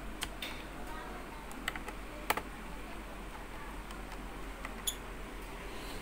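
A handful of small, sharp clicks and taps from a screwdriver working the screws on a laptop's plastic bottom case, the loudest a little past two seconds in, over a steady low hum.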